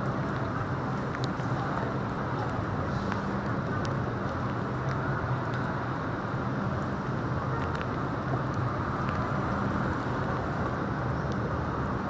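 Steady traffic noise on a rain-wet city street, with a constant low engine hum and scattered faint ticks.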